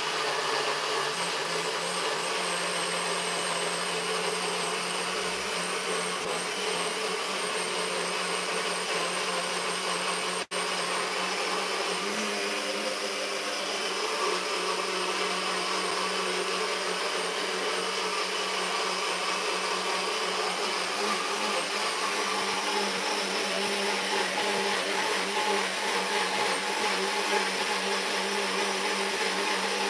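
Nutribullet blender motor running steadily, pureeing boiled carrots with water into a smooth liquid; the sound cuts out for an instant about ten seconds in.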